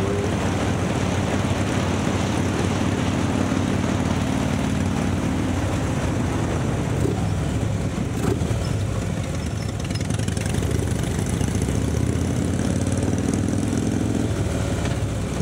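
A vehicle engine running under way, with a steady drone and rushing noise; its pitch sags around the middle and then climbs steadily over the last few seconds as it speeds up.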